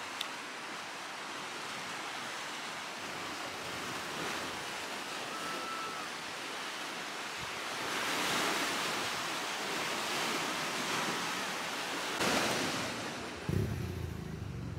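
Steady rushing noise of surf, swelling about eight seconds in and again briefly near twelve seconds. A low steady rumble comes in near the end.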